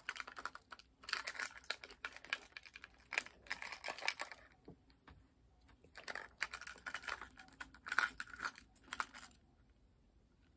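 Small trinkets on a keyring clinking and rattling as they are handled, in irregular bursts of clicks and rustles with short pauses between.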